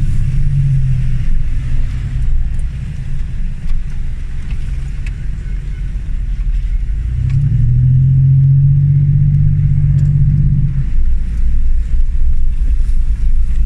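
Land Rover Discovery 1's 300Tdi four-cylinder turbodiesel engine running as the vehicle drives off-road, with a low, steady engine note that grows louder about seven seconds in and eases back near eleven seconds, and a few light knocks.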